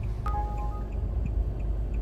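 Uber driver app ride-request alert chiming from the dashboard tablet: a chime about a quarter second in that rings out, with another starting at the very end. Soft regular ticks about three a second and a steady low car-interior rumble run underneath.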